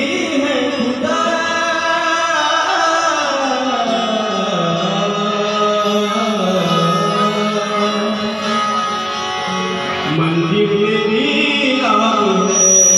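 A man singing long, slowly gliding held notes over musical accompaniment.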